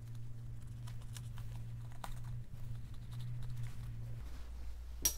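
Faint rustling and small ticks of hands handling braided line and a webbing parachute toggle while tying a knot, over a steady low hum that drops in pitch about four seconds in. A single sharp click near the end.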